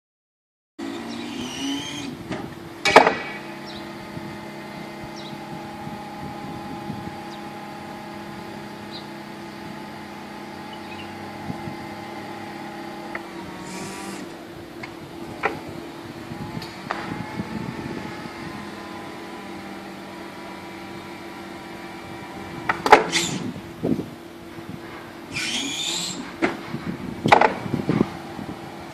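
Forklift working a sideshifting, revolving multi-purpose clamp: a steady hum from the truck and its hydraulics that shifts in pitch about halfway through, with sharp knocks about three seconds in and several more near the end, and a few short hisses.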